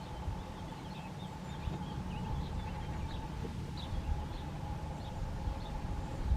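Many short, high bird chirps scattered throughout, over a low rumbling background.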